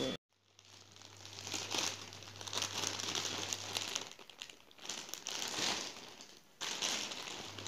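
Clear plastic bag crinkling and rustling as it is handled, a soft toy packed inside it.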